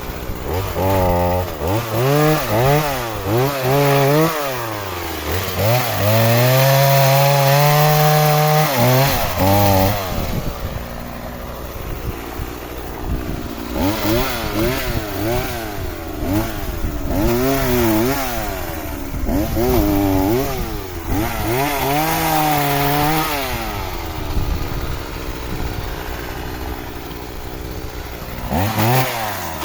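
Two-stroke chainsaw cutting firewood logs to size, its engine revving up and dropping back again and again, held at high revs for a few seconds about six seconds in and again near the two-thirds mark.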